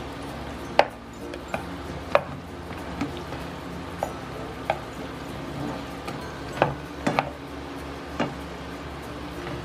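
Fried chicken being stirred and tossed in a sizzling sauce in a frying pan with a slotted spatula, which knocks against the pan about seven times, irregularly, over the steady sizzle.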